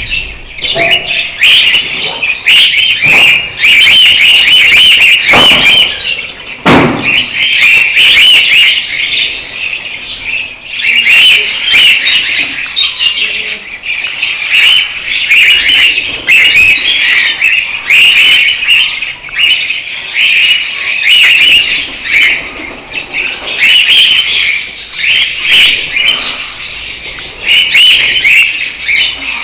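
Budgerigars chattering and warbling in dense, unbroken chirps, with a couple of short soft knocks about five and seven seconds in.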